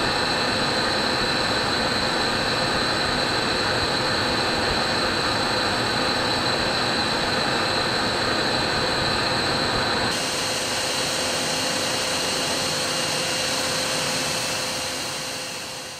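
Blown film extrusion line running: a steady machine noise with a constant high whine and lower hum over a rush of air. The sound changes about ten seconds in, the high noise dropping away, and fades out at the very end.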